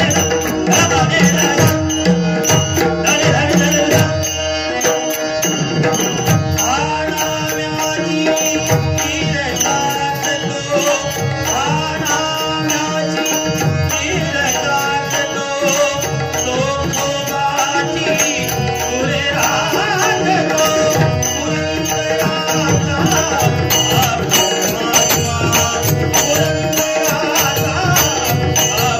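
Devotional bhajan singing: a man's voice sings a gliding, ornamented melody over steady harmonium tones, with hand-drum strokes keeping the rhythm.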